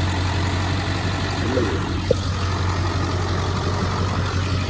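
Ford 7.3 L Power Stroke diesel V8 idling steadily, with a single short click about two seconds in.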